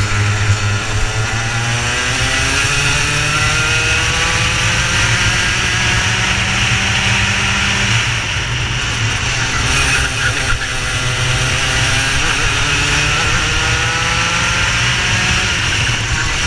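Racing kart's two-stroke engine under race conditions, its pitch climbing for several seconds as it accelerates, dropping back about halfway through, then climbing again near the end.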